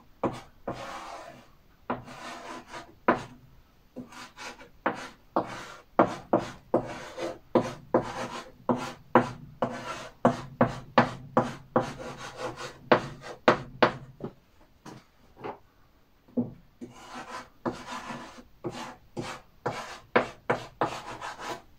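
Chalk writing on a blackboard: quick taps and scrapes of the chalk, stroke by stroke, with a pause of a couple of seconds about two-thirds of the way through.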